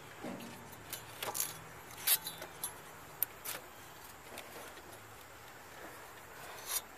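Irregular light metallic clinks and rattles of a wrench and bolt being worked against the alternator's steel mounting bracket, with a few sharper clicks about two and three seconds in and again near the end.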